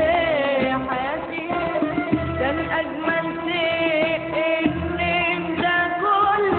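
Arabic tarab singing: a voice with ornamented, wavering melodic runs over instrumental accompaniment and a recurring drum beat.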